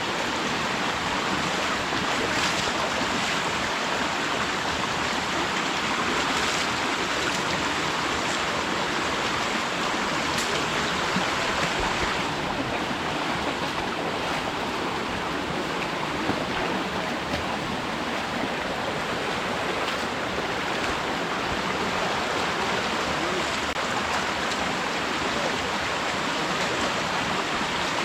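Steady rush of flowing water, with a slight change in tone about twelve seconds in.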